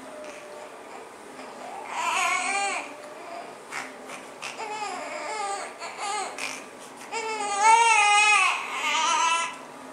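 Young infant crying: a wail about two seconds in, fussy whimpers after it, then a second, louder wail from about seven seconds in.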